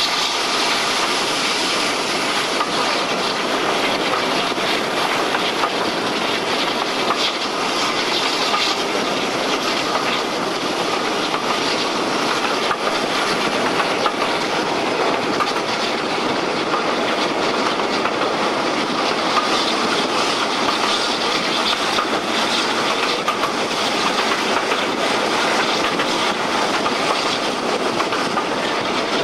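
Heritage twin-engined diesel-hydraulic locomotive hauling a train at speed, heard at an open window close to the locomotive: steady running noise with wheels clicking over the rail joints.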